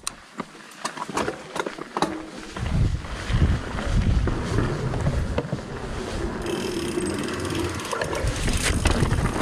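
Mountain bike going over a rocky trail section: a few sharp clicks and rattles, then from about three seconds in a steady low rumble with knocks, the tyres rolling over rock.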